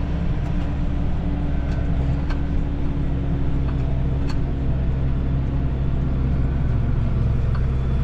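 Tractor engine running steadily, a low even drone with a faint higher hum that fades out near the end.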